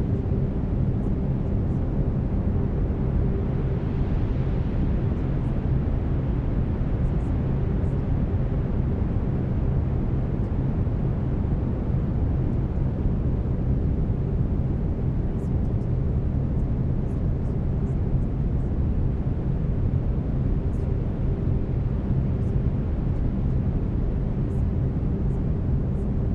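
Brown noise: a steady, deep hiss weighted toward the bass, with faint held humming tones of binaural beats beneath it, one of them fading in and out.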